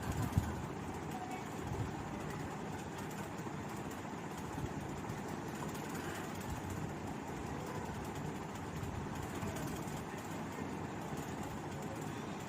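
Steady low background rumble, with a brief knock about half a second in.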